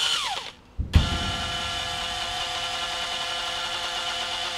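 Makita cordless drill spinning an ear of corn on its chuck. The motor winds down and stops just after the start, then starts again with a low thump about a second in and runs at a steady whine.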